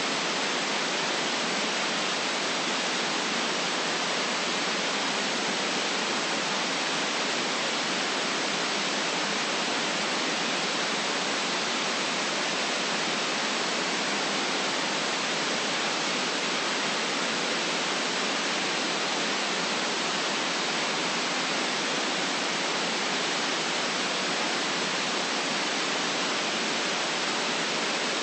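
Steady synthetic white noise: an even, unchanging hiss with no deep bass.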